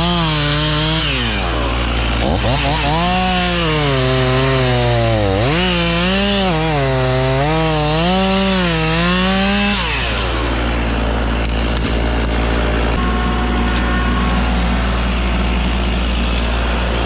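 Two-stroke chainsaw cutting wood, its engine pitch swinging up and down as the chain loads in the cut and frees up. About ten seconds in, the cutting stops and the engine settles to a steadier, lower tone, over a constant low engine drone.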